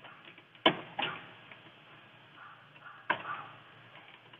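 Three sharp plastic clicks and knocks from handling a component inside a motor control panel, where the contactors and thermal overload relay are mounted: two close together about a second in, a third about three seconds in.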